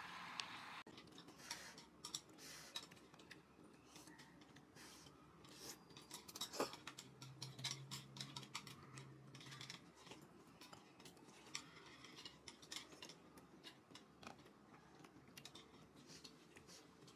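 Faint, scattered clicks and taps of chopsticks and a spoon against an aluminium foil tray of self-heating steamboat while food is picked out and eaten.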